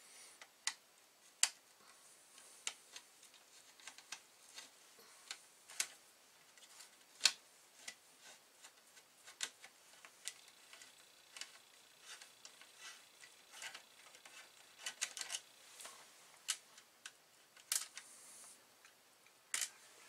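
Faint, irregular sharp clicks and taps of a hand tool working the metal connector hardware along the back edge of a Commodore Amiga 1200 motherboard, a few a second, with a quicker run of clicks about three quarters of the way through.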